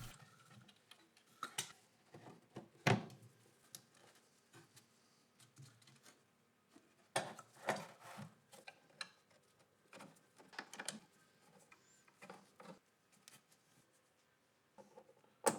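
Faint, irregular clicks and light knocks of small parts and tools being handled, with a sharper click near the end.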